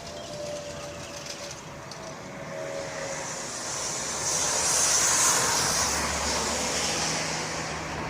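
A vehicle passing by: its noise swells to a peak about five seconds in and then fades.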